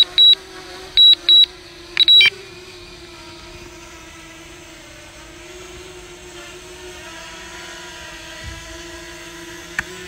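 Pairs of short high electronic beeps from the drone's controller app, about one pair a second, stop about two seconds in. Under them and then alone is the steady propeller whine of a DJI Mavic Mini descending to land. A single sharp click comes near the end.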